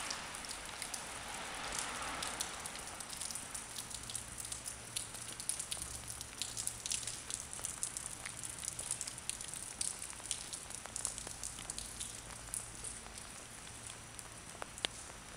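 Light rain pattering close to the microphone: a dense crackle of small drop ticks over a soft hiss, with one sharper tick near the end.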